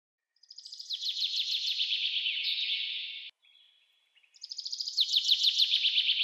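A bird singing: two long bouts of rapid, high chirps, each building up at its start. The first bout cuts off abruptly a little after three seconds in, and the second starts about a second later.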